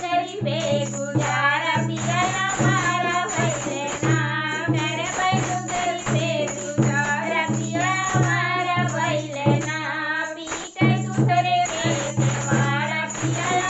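Two women singing a rustic Hindi-dialect folk song together, over a steady low drone and jingling tambourine-like percussion.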